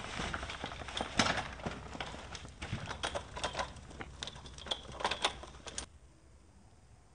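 A child's bike with training wheels rolling over a board ramp and dirt: a run of rattling clicks and knocks, with a sharp knock about a second in. The clatter cuts off suddenly about six seconds in.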